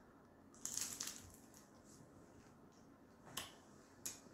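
Faint mouth sounds of a person chewing food, with a few short wet clicks about a second in and twice near the end.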